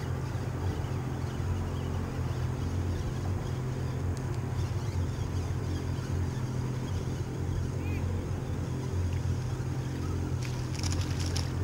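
A small center-console fishing boat's outboard motor idling with a steady low hum, over a haze of water and wind noise. A short rattle of clicks comes near the end.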